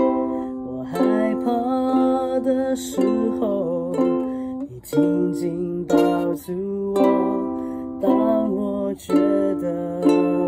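Aklot soprano ukulele strummed in chords, with a fresh strum every second or two, and a woman singing along.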